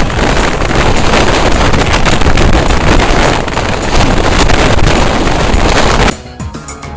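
Loud rushing of gale-force wind buffeting the microphone, mixed with the engine noise of a landing jet airliner. It cuts off suddenly about six seconds in.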